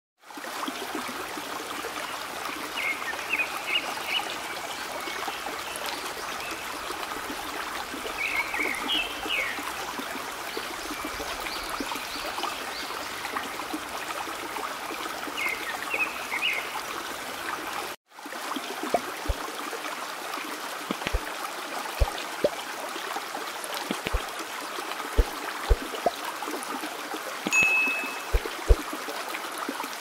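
Running stream trickling steadily, with short bird chirps about 3, 8 and 16 seconds in. About halfway through there is a brief break, then the water sound resumes with scattered sharp clicks and a short high whistle near the end.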